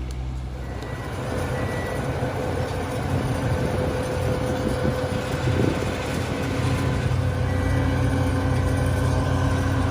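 Heavy construction machinery running, a steady engine rumble with a few held whining tones, growing louder about a second in.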